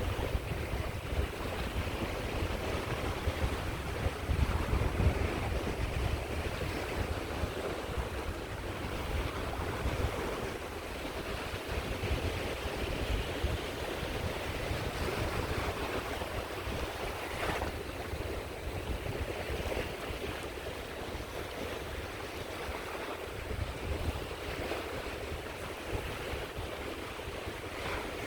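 Sea waves washing onto a shore in a continuous wash, with a swell now and then. There is a low rumble of wind on the microphone, strongest early on.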